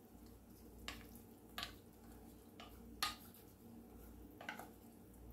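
A handful of short, faint knocks and scrapes of a wooden spoon against a glass baking dish as canned chicken is scooped and stirred into mixed vegetables. The strongest knock comes about three seconds in.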